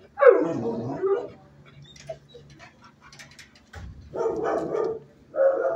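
Dogs barking in a shelter kennel block: three long barks of about a second each, one near the start and two more after about four and five seconds, over a steady low hum.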